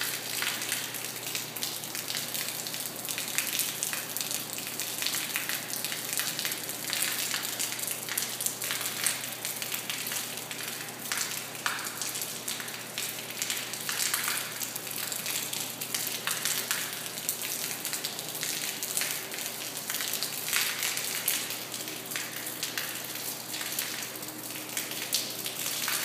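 A steady stream of water falling from a small hole drilled into a hollow concrete beam and splashing onto the concrete floor: a constant spattering hiss. The water is leak water that had collected inside the beam's hollow core and is draining out without slowing.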